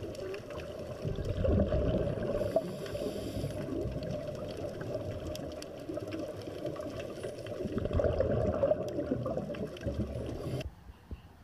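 Underwater recording of a scuba dive: low bubbling and rumbling of water and the diver's exhaled air bubbles. It swells twice, about two seconds in and again around eight seconds in, and cuts off near the end.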